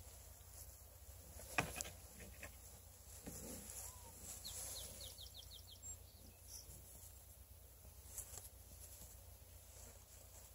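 Faint outdoor quiet with a quick run of short, high bird chirps about halfway through, and a single sharp click about a second and a half in.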